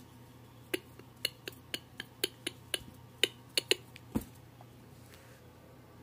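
A string of about a dozen short, sharp clicks or taps at uneven intervals over about three and a half seconds, over a faint steady low hum, then only the hum.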